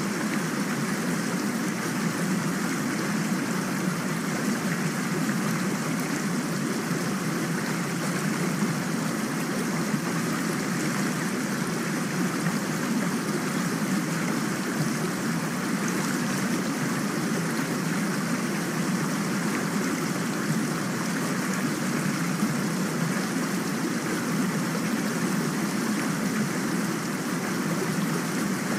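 Recorded rain falling steadily, an even rushing hiss with no breaks or single drops standing out.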